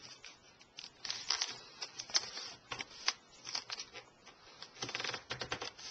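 A sheet of letter-size printer paper being folded and creased by hand, with irregular rustles and crackles and a quick run of crackles about five seconds in.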